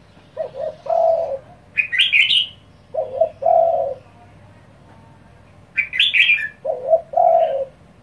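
Caged spotted dove cooing: three low phrases, each a few quick notes run into a longer coo, about three seconds apart. Between them, twice, comes a brief burst of loud high-pitched chirping.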